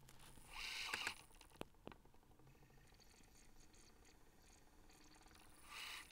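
Panasonic SJ-MJ78 MiniDisc player's mechanism whirring in two short bursts, about half a second in and near the end, with a few clicks between, as it tries to spin up and read the disc. The owner thinks it might be the laser sled moving across and skipping on its worm gear, stiff for lack of lubrication, so the laser can't reach position.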